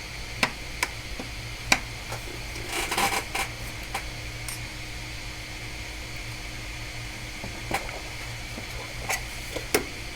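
Steady low electrical hum and background hiss, with a few light clicks and taps scattered through, a small cluster about three seconds in.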